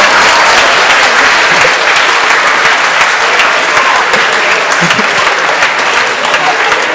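Large audience applauding, dense clapping that eases off slightly toward the end.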